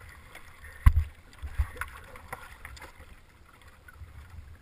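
Water sloshing around a Yamaha SuperJet stand-up jet ski rocking in the water, with a low rumble underneath and scattered knocks against the hull. There is a sharp thump about a second in and another shortly after.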